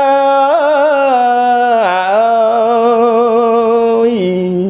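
A monk chanting smot, Khmer Buddhist sung poetry, as a solo voice. He holds long drawn-out notes with wavering ornaments about half a second and two seconds in, then steps down to a lower held note near the end.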